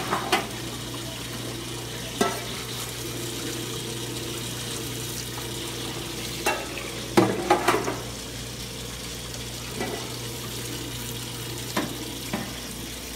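Hot cooking oil streaming from a fryer-filter machine's wand and splashing into an emptied steel fryer pot to rinse it, a steady splashing over a low hum from the machine's pump motor. A few short knocks from metal on the steel tank are scattered through it.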